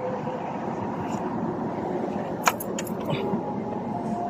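Steady background noise with a single sharp click about two and a half seconds in.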